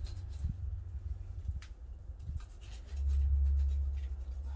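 A knife working on a hanging goat carcass, with faint rubbing and a few light clicks as flesh and hide are cut and pulled. Under it runs a low rumble that swells in the second half and is the loudest sound.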